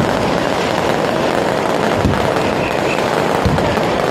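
Fireworks going off over a steady, loud din, with low booms about two seconds in and again near three and a half seconds.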